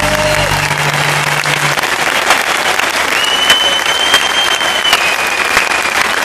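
Concert audience applauding after a song, with long piercing whistles from the crowd near the middle; the band's last held note ends about a second and a half in.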